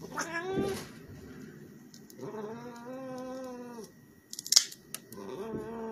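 A cat yowling in protest at having its claws trimmed: a short cry near the start, then a long, low, drawn-out one about two seconds in. About four and a half seconds in, nail clippers snip a claw with a sharp click or two.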